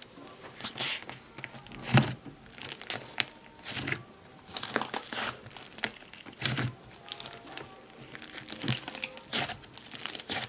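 Slime being squeezed and stretched by hand, giving irregular crackles and small pops, with louder pops about two seconds and six and a half seconds in.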